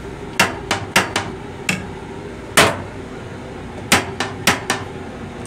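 Plastic toilet seat lid in a train restroom being worked by hand, knocking sharply about ten times, the loudest about two and a half seconds in. A steady rumble of the moving train runs underneath.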